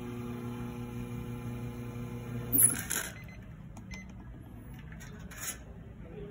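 Espresso machine pump humming steadily during the shot, then cutting off about two and a half seconds in with a short hiss of pressure venting from the group head as the brew lever is dropped. A few light clicks follow.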